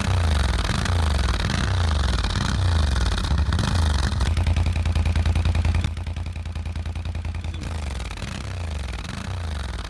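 ATV engine revving in repeated surges, then dropping to a lower, rougher run of even firing pulses about six seconds in.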